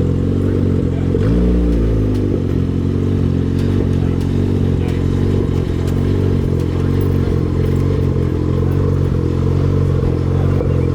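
Honda car engine idling steadily, with one brief throttle blip a little over a second in.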